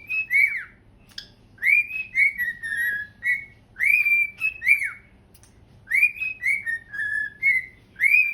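Pet cockatiel whistling its learned song: the same short phrase of rising and falling whistled notes repeated about every two seconds, four times over.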